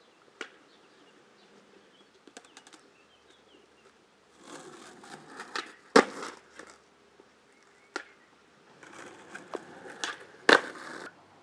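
Skateboard wheels rolling on concrete, ending in a sharp clack of the board hitting the ground about six seconds in. After a pause the wheels roll again and end in a second, louder clack near the end.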